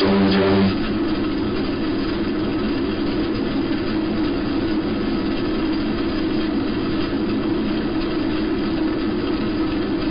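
A buzzing tone cuts off under a second in. It gives way to steady radio static with a low rumbling hiss, the noise bed of a simulated shortwave numbers station.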